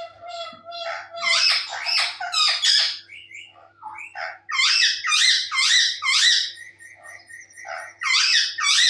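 Parrot squawking: loud, repeated calls in three bouts, with a faint steady hum underneath.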